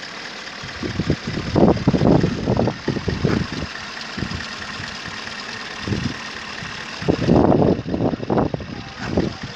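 Holden 6.0-litre V8 idling steadily under the open bonnet, with irregular louder low rumbling over it a couple of seconds in and again near the end.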